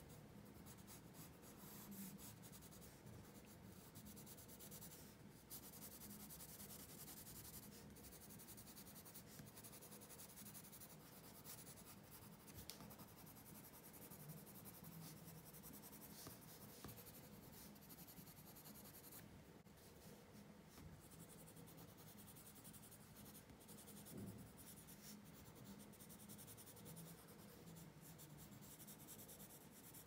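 Faint pencil scratching on paper in a continuous run of short strokes.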